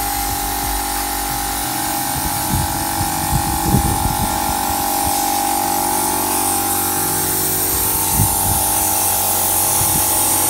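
Compressed-air blow gun hissing steadily with a constant whistling tone as it blows water off a freshly washed engine bay.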